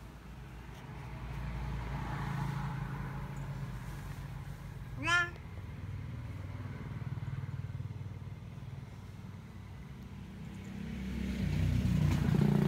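A steady low motor hum that swells twice, with one short chirp rising quickly in pitch about five seconds in.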